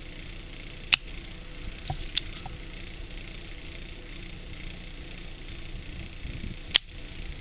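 A handheld desoldering iron at work on a small circuit board: two sharp clicks, about a second in and near the end, and a fainter tick between them, over a steady hiss. This is the solder being cleared from a miniature bulb's leads so the bulb can be pulled free.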